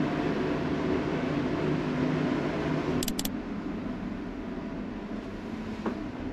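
Steady low drone of a large passenger ferry's machinery and ventilation heard from inside the ship. A quick cluster of clicks comes about three seconds in, and after it the drone is quieter.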